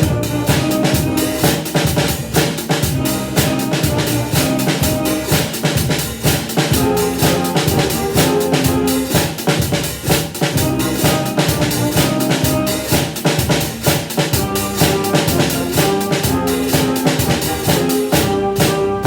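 Drum kit playing a steady bass-drum-and-snare beat with regular, rapid hits throughout, over pitched band accompaniment.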